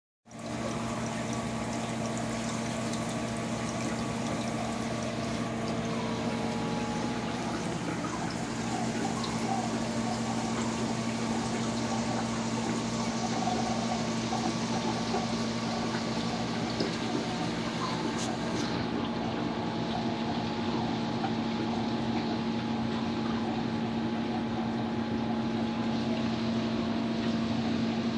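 Large aquarium's circulating water splashing and trickling steadily, over a constant low electric hum from its pump.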